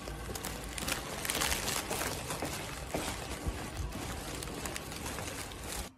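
Clear plastic sleeve around a bouquet of flowers crinkling and rustling close to the microphone as it is handled, a dense run of irregular crackles.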